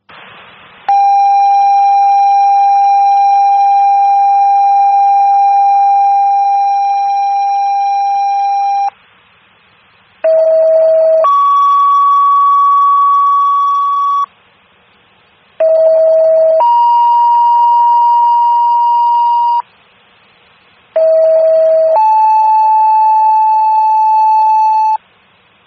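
Fire dispatch paging alert tones over a scanner radio. One long steady tone lasts about eight seconds, then come three two-tone sequences, each a short lower tone followed by a longer higher tone, with the second pitch different each time. They tone out the firefighters' pagers ahead of a dispatch.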